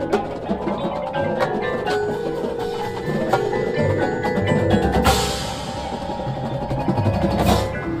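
Drum corps field-show music: mallet percussion and chimes ringing over sustained chords, with a cymbal crash about five seconds in and another near the end.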